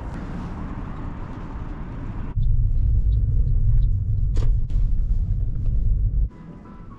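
Car driving, heard from inside the cabin: a steady low road-and-engine rumble that jumps suddenly louder about two seconds in and cuts off abruptly about six seconds in, with a single sharp click in between.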